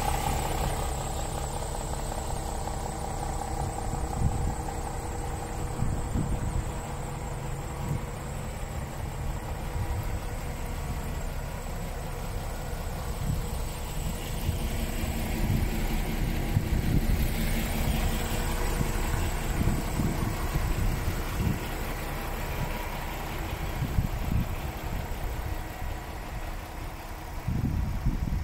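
DAF XF 480's PACCAR MX-13 inline-six diesel engine idling steadily, with uneven low rumbles of wind buffeting the microphone.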